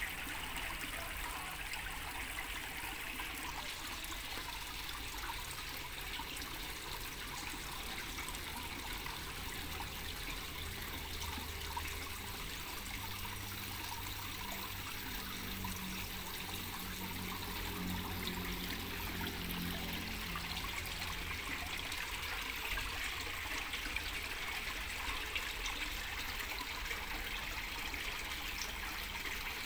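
Water trickling steadily as thin streams fall from holes in a PVC pipe into a small garden fish pond.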